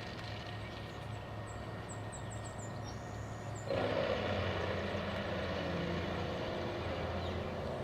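Wood chipper shredding cut-down trees, running with a steady engine drone, getting suddenly louder a little under four seconds in.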